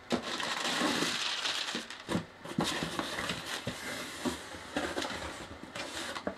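Cardboard shipping box being opened by hand: flaps scraping and rustling, with many short knocks and crinkles as hands reach in among the packing, a sharp one right at the start.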